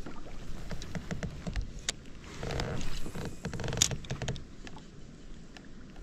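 Scattered small clicks and knocks of fishing gear on a plastic fishing kayak, with a short run of quick, even ticking in the middle.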